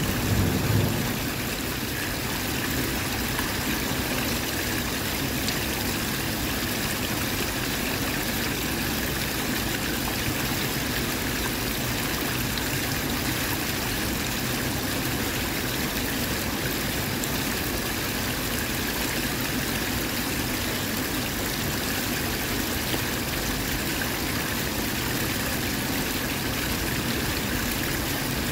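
Hotpot broth at a rolling boil in a metal pot, bubbling steadily.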